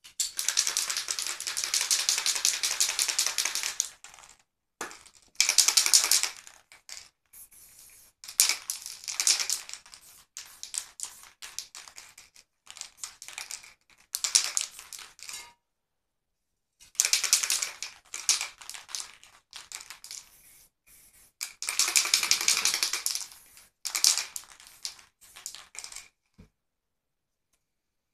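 Aerosol spray-paint cans sprayed onto paper in a series of hissing bursts. The first and longest lasts about four seconds, and shorter sprays follow with pauses between them.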